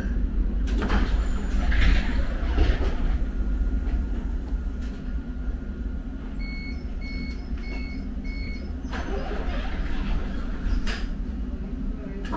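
Subway train's door-closing warning: four short high beeps, about two a second, midway through, over the train's steady low rumble and a few knocks and rattles.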